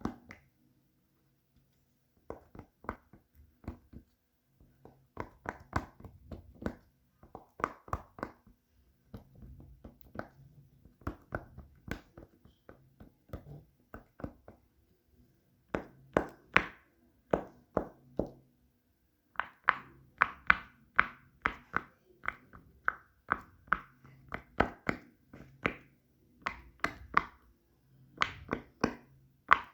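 Fidget toys being handled, giving irregular runs of quick small taps and pops, several a second with short pauses between runs, louder from about 16 seconds in.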